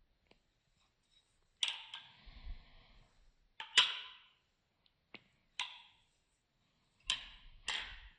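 Balisong (butterfly knife) being flipped: about six sharp metallic clacks with a short ring, at irregular intervals, as the handles swing around and strike each other and the blade's pins.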